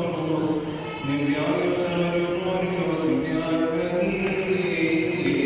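A man's voice chanting a Coptic liturgical hymn in long, held notes that slide slowly from pitch to pitch.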